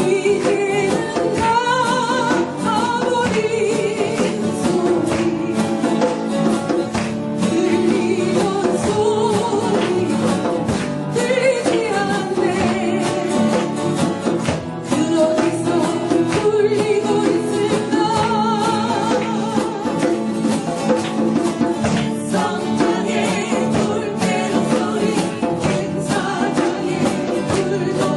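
A song sung over strummed acoustic guitar, with the voice carrying a wavering melody throughout.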